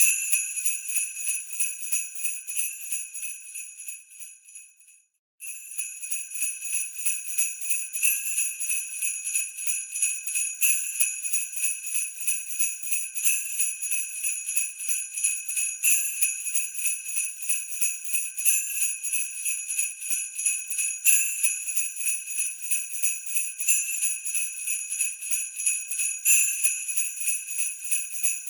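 Sleigh bells shaken in a steady rhythm, with a stronger accent about every two and a half seconds. About four seconds in the jingling fades away to a moment of silence, then starts again abruptly.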